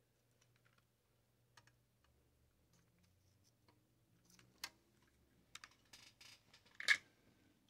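Faint, scattered clicks and taps of a screwdriver and metal parts being handled on a vacuum-tube TV chassis, with a sharper click about seven seconds in. A faint steady low hum runs underneath.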